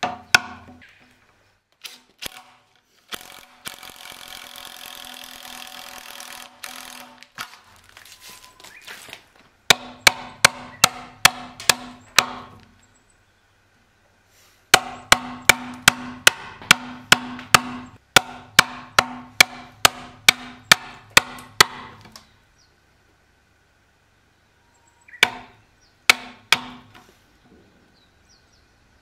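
Steel Japanese hammer striking a chisel cutting into a Japanese pine (matsu) beam, in bursts of quick blows, about three to four a second, each with a short ringing tone. A few seconds in comes a stretch of steady scraping.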